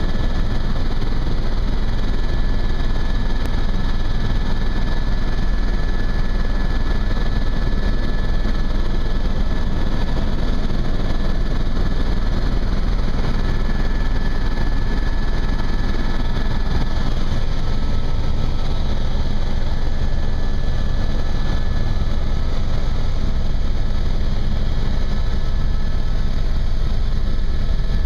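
Helicopter in flight heard from inside the cabin: a loud, steady drone of rotor and engine, with a thin steady high whine over it.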